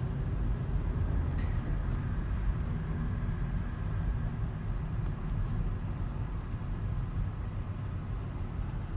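Opel Astra K 1.6 turbo car running with a steady low rumble, and a faint high-pitched squeal through the first half that then fades. The squeal comes with the air conditioning on and varies with engine speed.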